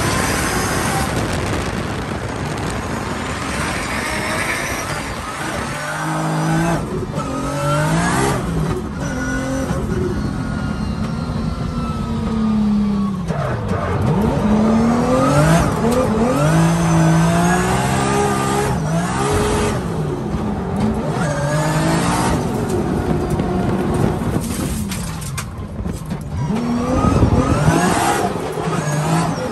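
Nissan Silvia S15 drift car heard from inside the cabin while drifting. The engine revs hard, its pitch climbing and dropping again and again with throttle and gear changes, over a steady rush of tyre and road noise with some tyre squeal.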